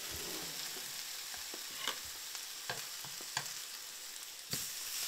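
Eggs sizzling in butter in a frying pan, a steady hiss, with a few light knocks against the pan; the sharpest knock comes about four and a half seconds in.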